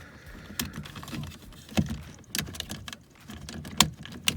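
Plastic clips of a 2010 Nissan Murano window switch panel clicking and cracking as the panel is pried out of the door trim, with sharp snaps about two seconds in and near the end. It sounds like something breaking, but that is how the clips release.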